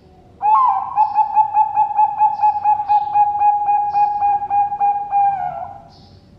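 Zebra dove (Bangkok perkutut) cooing: one long song of rapid, evenly pulsed coos, about four or five a second, starting about half a second in and trailing off near the end. Small birds chirp faintly in the background.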